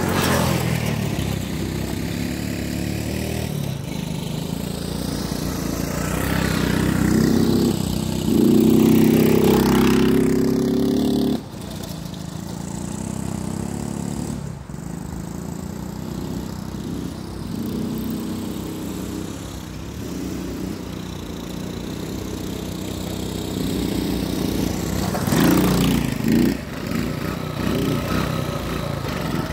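Small single-cylinder four-stroke engines of two Honda ATC three-wheelers, an ATC110 and an ATC70, running as they are ridden around. The engine sound is loudest as one passes close, drops suddenly about 11 seconds in, and rises again near the end as a rider comes back toward the camera.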